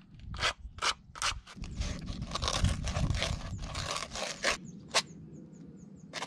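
Sandpaper rubbing over the cut end of a 15 mm metal pipe to take off the burrs. A few short scraping strokes run into a stretch of steady rubbing, with one last sharp stroke near the end.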